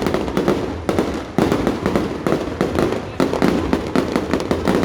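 Fireworks and firecrackers going off in a dense, unbroken stream of sharp bangs and cracks, several a second, with a few louder reports standing out, at about one and a half seconds and a little after three seconds.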